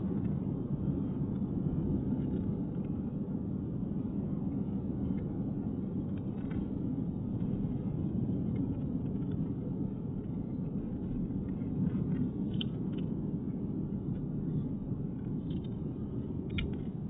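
Steady low rumble of a car's engine and tyre noise while driving at road speed, heard from inside the moving car, with a few faint ticks in the last few seconds.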